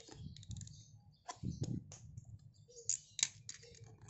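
Small cardboard box being handled and opened by hand: scattered light taps, scrapes and clicks of the cardboard. There are a few louder knocks about a second and a half in and sharp clicks near three seconds.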